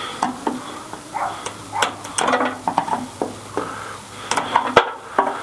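Irregular scraping and clicking of hand work prying and pulling at the hardened, baked-on rubber windshield seal of a 1963 Chevrolet C10 cab.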